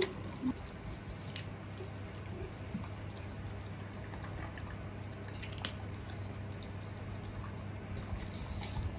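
Faint wet clicks and smacks from a German pinscher working his jaws and tongue, trying to clear something stuck in his mouth, over a steady low hum.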